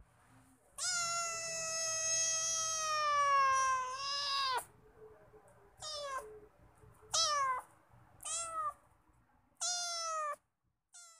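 Cat meowing: one long, drawn-out meow that falls slowly in pitch, starting about a second in and lasting nearly four seconds, followed by five shorter meows about a second apart.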